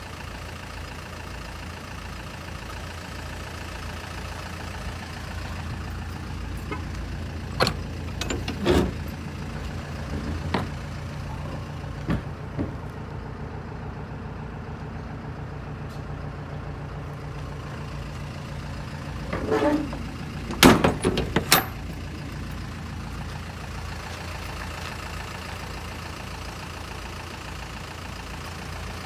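Hino Dutro truck's engine idling with a steady low pulsing hum. Metal knocks and clanks from the cargo box's doors and latches come a few at a time between about eight and twelve seconds in, and a louder cluster comes around twenty seconds in.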